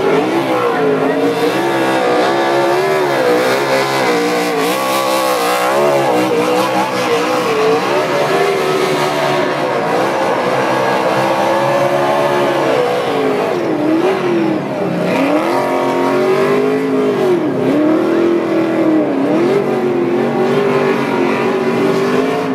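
NASCAR stock car's V8 engine revving hard through a burnout, with the tyres spinning on the pavement. The engine pitch swells and drops again and again, with several sharp dips and recoveries in the second half.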